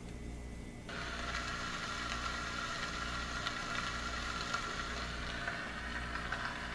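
Sony ICF-C707 clock radio playing its rain nature sound through its small speaker: an even hiss of falling rain with faint patter, starting about a second in, over a steady low hum.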